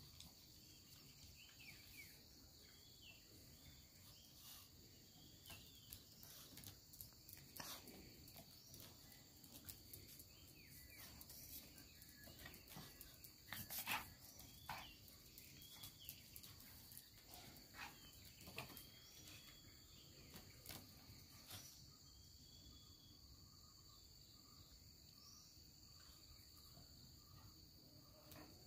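Faint ambience of insects droning, two steady high-pitched tones throughout, with a few faint chirps and scattered soft clicks; the loudest click comes about halfway through.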